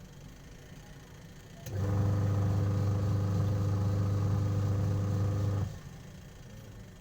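Sharp washing machine's motor and gearbox running briefly: a steady hum that starts suddenly about two seconds in, holds level for about four seconds, then cuts off.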